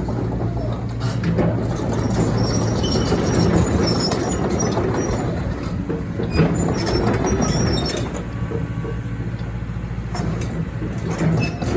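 Liebherr R924 Compact hydraulic excavator's diesel engine running steadily, with scattered metallic clanks and short high squeaks; it drops a little quieter from about eight seconds in, then picks up again near the end.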